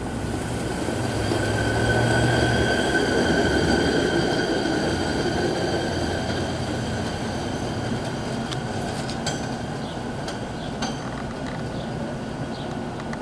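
Hi-rail pickup truck rolling along the rails on its tyres and steel guide wheels, passing close and then moving away, with a steady high-pitched whine over the running noise. It is loudest about two to four seconds in and fades after that, with a few sharp clicks in the second half.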